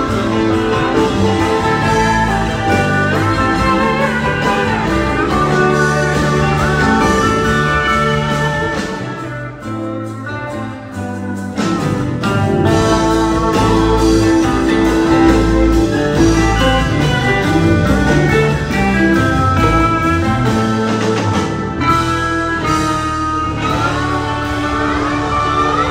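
Live band playing an instrumental passage on acoustic and electric guitars, keyboards and drums. It drops quieter about nine seconds in and comes back in full about three seconds later.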